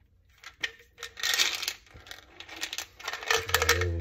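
Magnesium tablets rattling in a supplement bottle as the cap is twisted off and pills are shaken out: a burst of rattling about a second in and another near the end.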